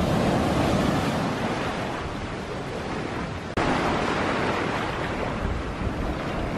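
Ocean waves breaking right at the shoreline, then foamy surf washing up over the sand: a steady rush of water, broken by a sudden brief drop about three and a half seconds in.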